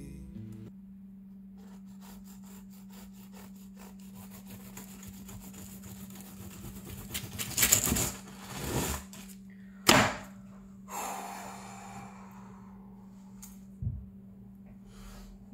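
Serrated bread knife sawing through the baked puff-pastry crust of a beef Wellington: a run of fine crackling strokes, then louder crunching and rustling of parchment paper, and a thunk near the end. A steady low hum runs underneath.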